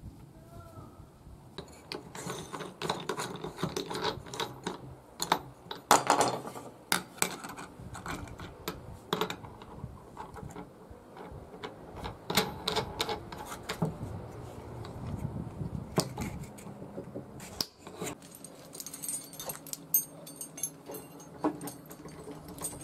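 Irregular metallic clicks and knocks on a wooden workbench as the cutting disc on an angle grinder is changed by hand, then lighter metal clinking from a rusty chain being handled near the end.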